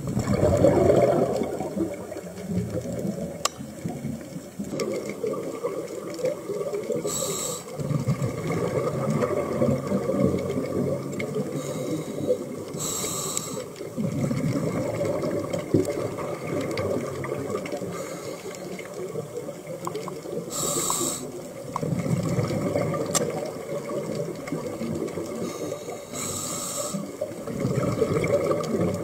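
Scuba diver breathing through a regulator underwater: long gurgling rushes of exhaled bubbles, broken four times by the short, sharp hiss of an inhale.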